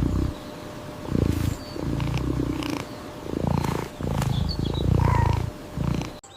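Cat purring in a run of short, low, rumbling bursts with brief pauses between them.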